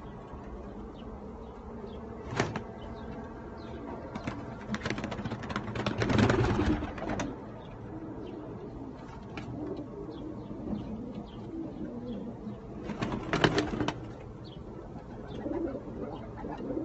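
Domestic pigeons cooing, with a few short bursts of wing flapping: one about two seconds in, a longer one around five to seven seconds in, and another near thirteen seconds.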